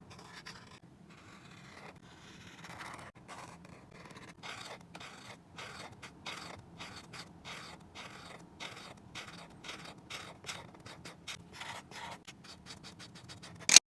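A drawing tool scratching across paper in short repeated strokes, sparse at first, then a quicker, steadier run of about two to three strokes a second through the second half. A single sharp click just before the end is the loudest sound.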